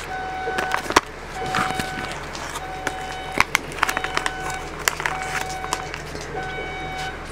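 Vehicle reversing alarm beeping at a steady pitch, about once a second. Scattered sharp clicks and taps, the loudest about a second in and twice more midway.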